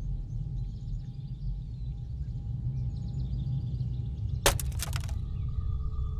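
Woodland ambience: small birds chirping over a low steady rumble and a faint held music drone. About four and a half seconds in, a sudden sharp crackling hit lasting about half a second, after which a new steady music tone comes in.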